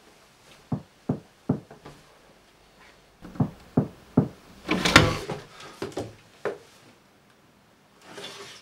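Knocking on a wooden door in quick sets of three, then a louder, longer bang about five seconds in, followed by a few more knocks.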